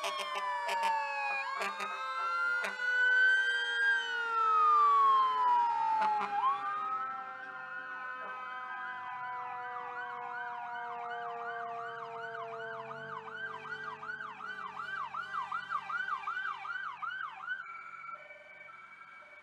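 Sirens of several emergency vehicles, mostly fire trucks, sounding together as they pass, with overlapping wails rising and falling in pitch and a few short sharp clicks early on. From about eight seconds in, a single fast yelp of about three cycles a second takes over, and it stops shortly before the end.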